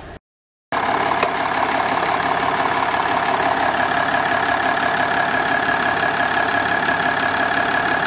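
Jeep Grand Cherokee's 3.0-litre V6 diesel idling steadily with a light diesel clatter, cutting in after a brief silence near the start.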